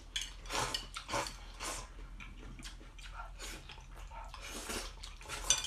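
A person slurping and chewing stir-fried noodles: a series of short sucking slurps, with a few light clicks of chopsticks against the bowl.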